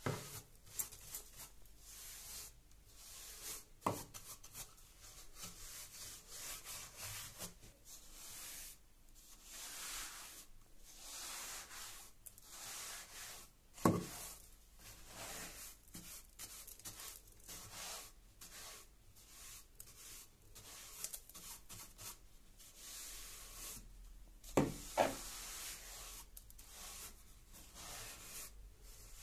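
Flat paint brush bristles sweeping dust and grit across a stair tread in short back-and-forth strokes: a soft, hissy rubbing. A few sharp knocks stand out, about four seconds in, at fourteen seconds, and twice close together near twenty-five seconds.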